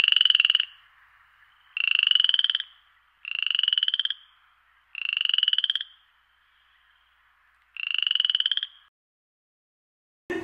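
A frog croaking five times, each croak a rattling call just under a second long, with gaps of one to three seconds between them.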